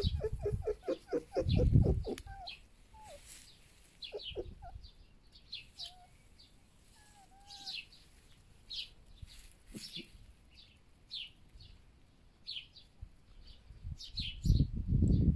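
Red foxes making their clucking, chattering food-offering calls: a quick run of pulsed chatter in the first second or so, then scattered short squeaks with sharp high chirps repeating throughout. A louder, noisier sound builds near the end.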